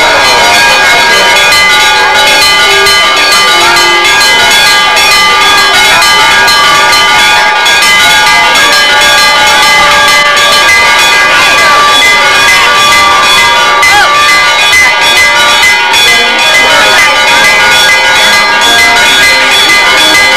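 Church bells pealing continuously, many overlapping strokes with their tones ringing on, over the murmur of a crowd.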